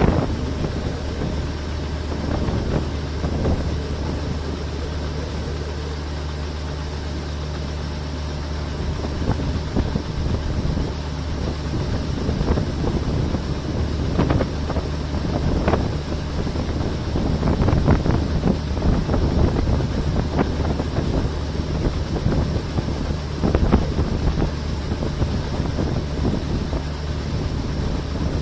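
Diesel engine of a harvest machine running steadily at constant speed, a low even hum, with gusts of wind buffeting the microphone.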